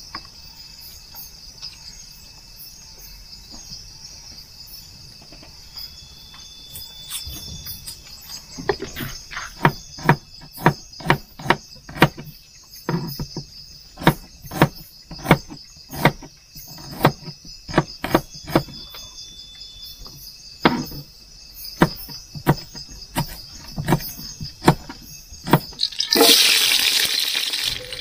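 Crickets and other insects trilling steadily, high-pitched. From about a third of the way in, a knife chops repeatedly on a cutting board, about two sharp knocks a second, cutting chili, garlic and shallots. Near the end a loud sizzle starts as food goes into hot oil in a pan.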